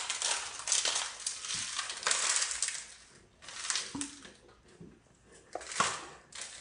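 Thick tinubong batter of rice and coconut being scooped from a plastic basin with a plastic cup and poured into bamboo tubes, with wet scraping, squishing and rustling. The noise is dense for about three seconds, then comes in two shorter bursts.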